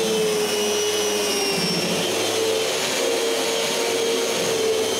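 Electric sander running steadily with a constant whine, sanding the outside of a glued-up wooden drawer.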